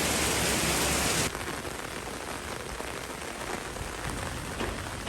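Steady rain falling, an even hiss of countless drops; just over a second in it suddenly drops to a quieter level and keeps falling.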